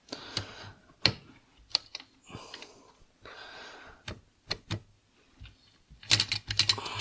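Scattered metal clicks and short scraping rattles from a Vespa PK 50 XL2 smallframe gearbox being shifted through its gears by hand during engine assembly, with a quick run of clicks about six seconds in.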